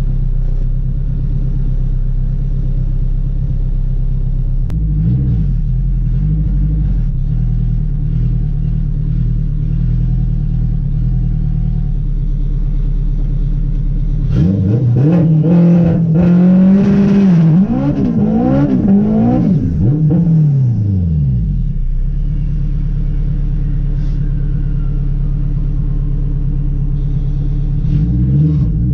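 Turbocharged Honda K20 four-cylinder running an open downpipe, idling steadily with a few throttle blips about five seconds in. From about halfway it is revved hard several times over some seven seconds, the pitch rising and falling with each rev, then settles back to idle, with a couple more blips near the end.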